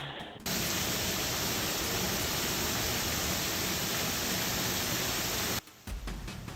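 Steady, even rushing noise that starts suddenly about half a second in and cuts off suddenly about a second before the end.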